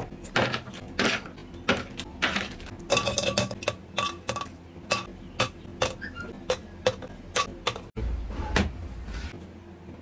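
Foil-lined biscuit wrappers crinkling as they are torn open, then biscuits dropped one by one into a plastic blender cup, each landing with a sharp click about twice a second. A dull thump comes about eight seconds in.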